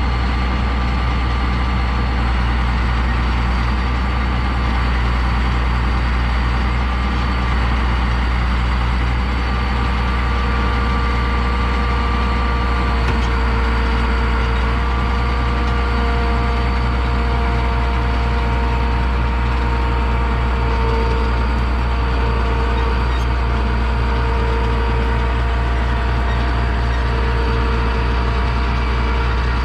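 Combine harvester's diesel engine running steadily at idle: a constant low hum with a faint higher whine over it.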